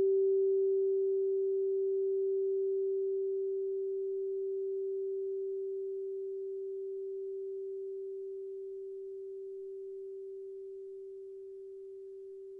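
Crystal singing bowl in G ringing out as one nearly pure, steady tone that slowly fades.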